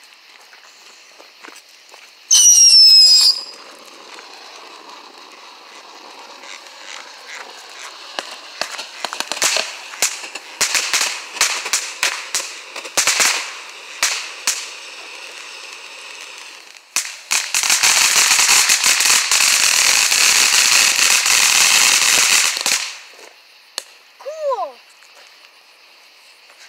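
Fountain firework spraying sparks: a loud falling whistle about two seconds in, then a hiss with scattered crackles that builds to a dense, loud crackling spray before dying away near the end.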